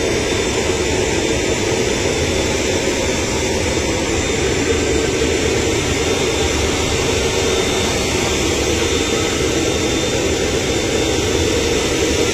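Jet aircraft running on the apron: a steady, loud rushing noise with a faint high whine.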